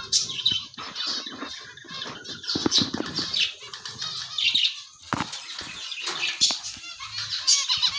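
Caged finches flapping their wings and chirping: quick fluttering and short high cheeps, with scattered sharp clicks throughout.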